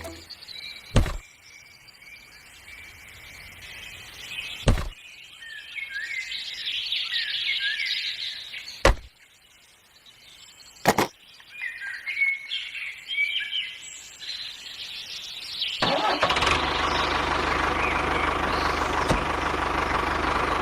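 Birds chirping, broken by four sharp single knocks; about three-quarters of the way in, a steady mechanical running noise with a low hum starts and continues.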